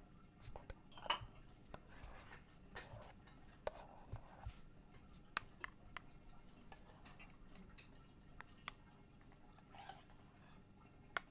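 Dishes and cutlery clinking and clattering quietly while a meal is served: a scattering of sharp clicks with a few short scrapes.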